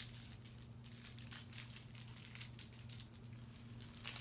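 Small plastic bags of diamond-painting drills crinkling faintly in short, scattered crackles as they are handled and laid down, over a low steady hum.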